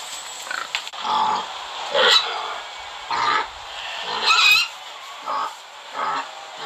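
Recorded pig oinks played by an augmented-reality animal app, a run of short calls about one a second.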